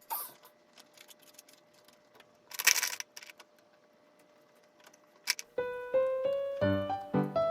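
Mostly quiet, with a short noisy rustle or scrape about two and a half seconds in and a few small clicks; near the end, background music starts with a piano-like keyboard melody of quick repeated notes.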